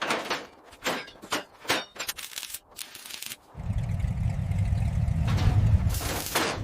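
A run of sharp knocks and clanks, then about three and a half seconds in a car engine starts up and runs with a loud, low, steady rumble.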